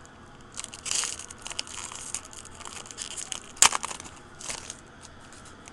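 Foil wrapper of a 2010 Donruss Elite baseball card pack crinkling and tearing as it is pulled open by hand, in irregular bursts. The loudest is a sharp crackle about two-thirds of the way through.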